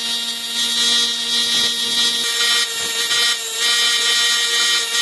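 Electric power tool running at a steady speed with a high whine and a hiss of material being worked.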